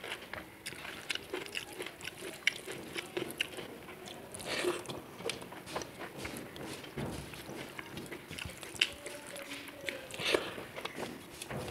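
Eating sounds: fingers squelching and mixing rice with curry on a steel plate, with wet mouth clicks and chewing, then a big mouthful of rice taken by hand near the end.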